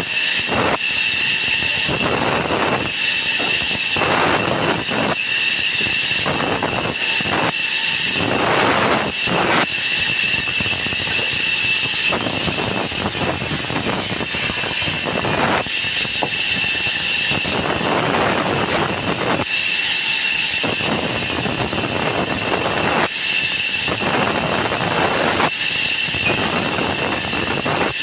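Sawmill wood-cutting saw running, with a continuous high whine and noise that swells and drops every second or two.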